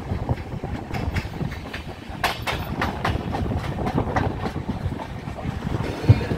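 Passenger train coaches running on the rails: a steady rumble with irregular clacks and knocks from the wheels over rail joints.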